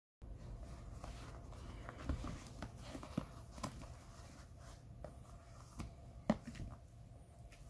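Hands handling a plastic-wrapped iPhone X box on a bed: soft rubbing and handling noise, with scattered light taps and clicks, the sharpest about six seconds in.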